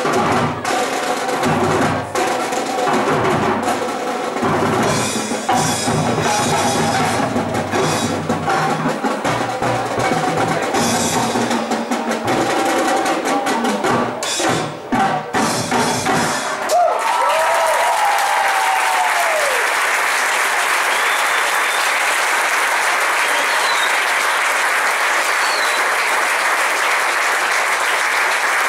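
Drum and bugle corps playing, with the drumline's snares, bass drums and cymbals driving over brass, until the music cuts off about two-thirds of the way through. The crowd then breaks into steady applause with a few cheers and whoops.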